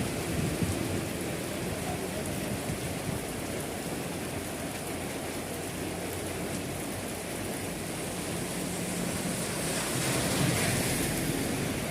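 Heavy rain falling steadily, a constant hiss that swells briefly near the end.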